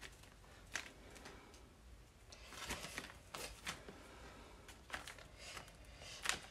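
Faint scrapes and taps of a cardboard scrap pressed and dragged across painted paper, in a handful of short strokes, busiest about halfway through.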